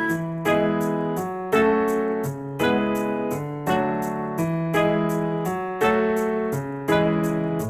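Background music: electric piano chords struck about once a second, each fading before the next.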